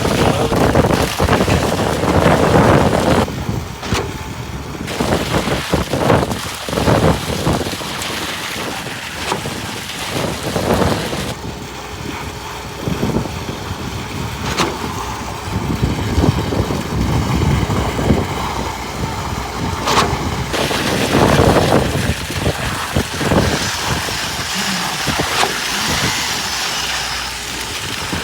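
Construction-site noise at a concrete slab pour: a machine engine running under a noisy, shifting rush, broken by many irregular knocks and clatters.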